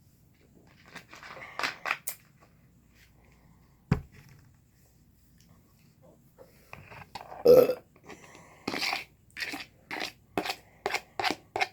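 A woman burps loudly about seven and a half seconds in, brought on by drinking carbonated Coca-Cola. Before it come a few soft sounds and a single sharp knock; after it, a quick run of short sharp sounds, about three a second.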